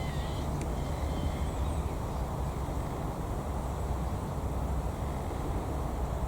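Outdoor background noise: a steady low rumble, with a few faint, short bird chirps in the first two seconds.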